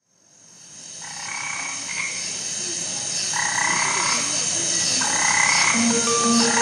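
Frogs croaking on a night-time nature soundtrack that fades in from silence. Pulsed calls about a second long repeat every one and a half to two seconds over a steady high hiss, and a few held musical notes come in near the end.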